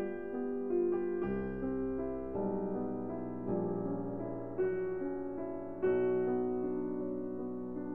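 Background piano music: slow notes and chords, each struck and left to ring before the next.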